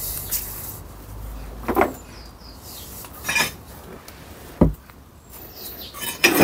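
Metal gearbox parts and tools clinking and knocking on a workbench, a few separate strikes with one heavier thump about two-thirds through and a quick cluster of clinks near the end.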